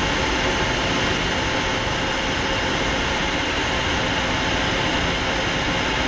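Twin Turbomeca Marboré turbojets of a Fouga Magister jet trainer in flight, heard from inside the cockpit: a steady, loud rush of engine and airflow noise with a few faint steady whining tones over it.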